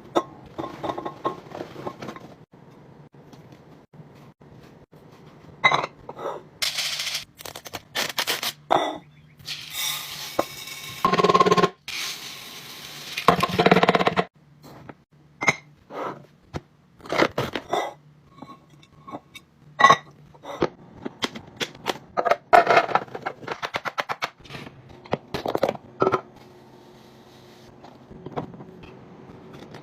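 Containers and packaging being handled during restocking: a string of clicks and knocks, with a few longer bursts of rustling or scraping, over a faint low steady hum.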